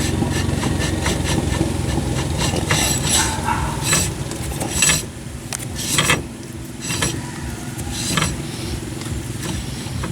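Metal clinks and taps from tools and brake or wheel parts being handled, at irregular intervals, over an engine running steadily underneath. The work is an inspection of a wheel that was binding and popping, which the owner suspects is a bad wheel bearing.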